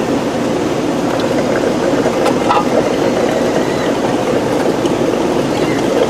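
Steady mechanical hum with a band of tone in the middle range, with a few light knocks a little over two seconds in as the pool pump's strainer basket is handled and lifted out of its pot.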